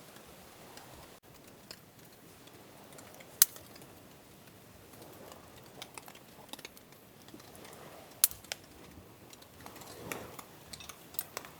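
Scattered light clicks and taps, a few of them sharp, from handling camp cooking gear and utensils.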